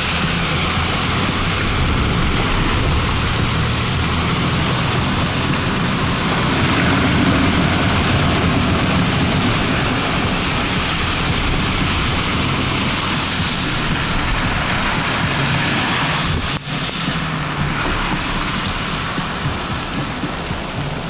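Steady rush and hiss of water, with an uneven low rumble underneath. The sound drops out for an instant about three-quarters of the way through.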